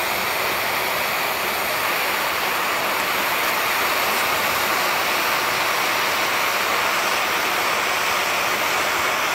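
Small propane torch burning with a steady, even hiss as its flame heats an aluminum boat hull to melt a fluxless brazing rod into a hole.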